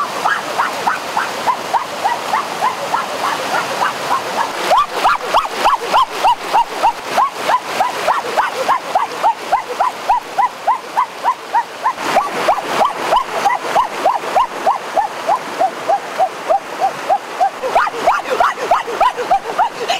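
Rushing water of a rocky mountain stream's rapids. Over it, a short high chirp repeats steadily, about two or three times a second.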